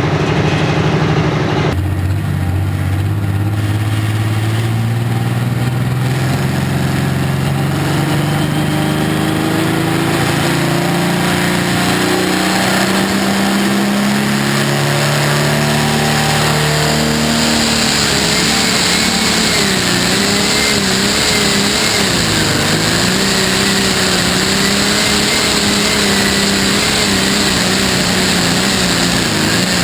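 John Deere 8410 pulling tractor's diesel engine at full throttle, dragging the sled down the track, heard close from an onboard camera. Its pitch climbs steadily for the first fifteen seconds or so, then wavers up and down under the load for the rest of the pull.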